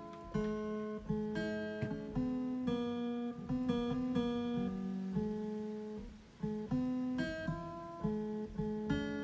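Background music played on a keyboard with a plucked, guitar-like voice: a melody of separate notes over low chords, with a brief pause about six seconds in.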